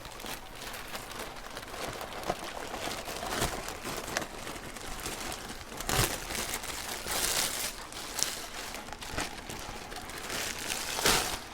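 Plastic packaging crinkling and rustling as a pinning mat is unwrapped, with several louder rustles in the second half.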